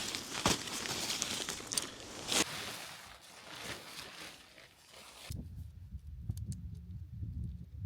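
Tent fabric rustling and crinkling as it is handled, with many small crackles. About five seconds in this stops abruptly and a low wind rumble on the microphone follows, with a few faint taps.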